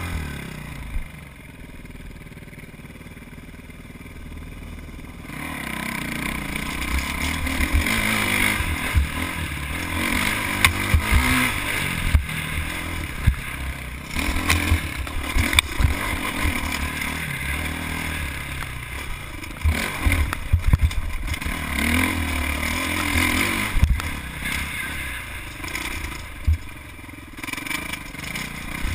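Dirt bike engine revving up and down while riding over rough, rocky ground, with frequent knocks and clatter from the bike bouncing over rocks. It is quieter for about the first five seconds, then louder.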